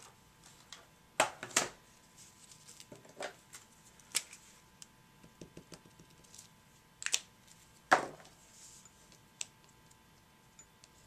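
Scattered light clicks and taps of craft tools and cardstock being handled: a tape runner, a pen-shaped tool and tweezers. The sharpest clicks come about a second in and again around seven to eight seconds in.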